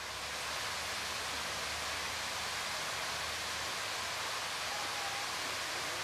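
Steady hiss of falling or running water, fading in over the first half second.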